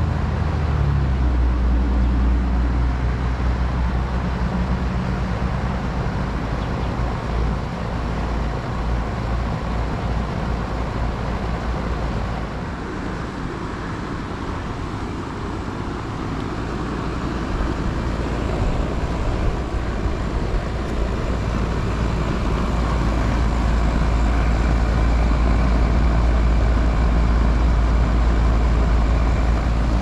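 A 2005 ComfortStar central air conditioner's outdoor condensing unit running just after startup: a steady low hum with fan noise over it.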